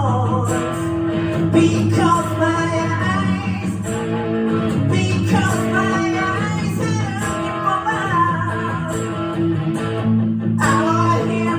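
A male singer singing a song live while strumming a guitar, with the vocal line pausing briefly near the end.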